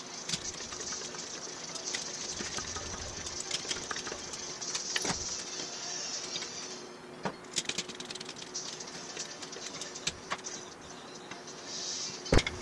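Steel tubing and dies being handled in a tube-bending fixture: scattered metallic clicks and clinks over a steady hum and high hiss, which drops away about halfway through. One sharp metal clank comes near the end.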